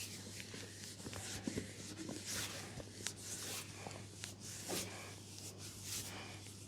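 Hands rubbing and stroking bare skin in a leg massage: soft, irregular swishing strokes with a few light clicks, over a steady low hum.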